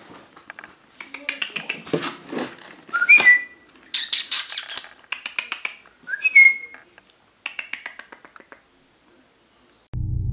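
A cat biting and chewing at crinkly plastic tape: irregular crackling and rustling, with two short high chirps, each rising then falling, at about three and six seconds in. Guitar music begins right at the end.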